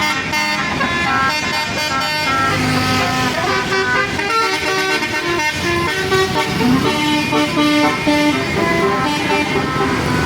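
Bus 'basuri' telolet horn playing a tune: a long run of quickly changing horn notes, over street and engine noise.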